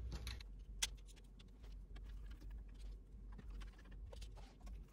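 Faint, scattered clicks and taps of small tools and screws being handled, with one sharper click a little under a second in.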